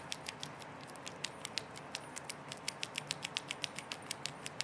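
SouthOrd tubular lock pick being worked in a tubular lock: a run of light, sharp metal clicks, about seven a second and uneven, as the pick's pins are set.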